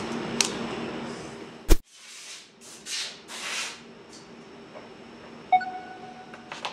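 Steady workshop hum that is cut off by a sharp click about a second and a half in. Then come a few short rustling handling sounds, and a brief beep from a smartphone timer near the end.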